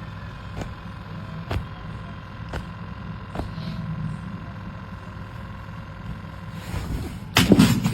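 Steady low rumble like a running vehicle, with faint ticks about once a second in the first half and a louder rustling burst near the end.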